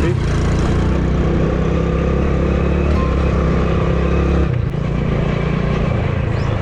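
Hero Splendor motorcycle's small single-cylinder four-stroke engine running under throttle while climbing an off-road track. About four and a half seconds in, the engine note briefly drops away and comes back at a different pitch.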